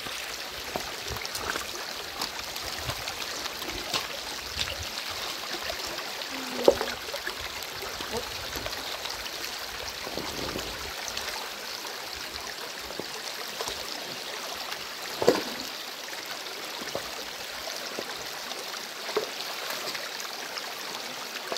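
Shallow rocky stream running steadily over stones, with splashing as hands grope among the rocks underwater. Two sharp, louder noises stand out, about a quarter of the way in and again past the middle.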